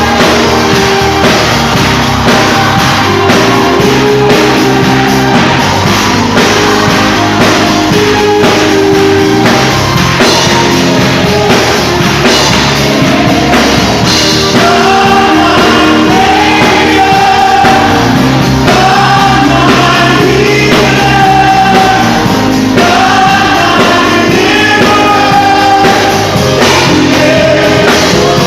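Live gospel worship music: a lead singer with a backing choir singing over a band with drum kit, sustained sung notes throughout.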